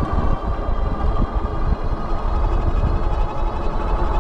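Wind buffeting the microphone while riding a Wallke H9 AWD e-bike, over a steady high whine that drops slightly in pitch.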